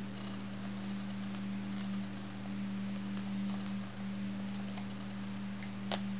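A steady low hum, with one sharp tap near the end as a fingertip strikes the tablet's touchscreen keyboard.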